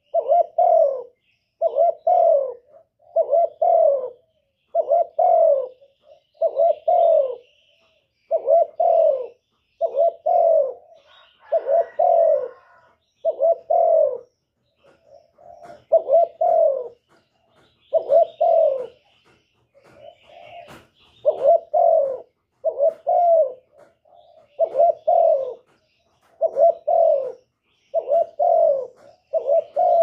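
Male spotted dove cooing: a steady run of short, low coos about one a second, often in pairs, breaking off briefly a couple of times. This is the cu gáy call used to stir a hen to lay.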